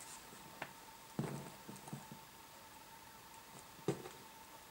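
Faint handling sounds as wires and alligator-clip leads are connected on a bench: a few light clicks and knocks, spaced irregularly. A faint steady high tone runs underneath.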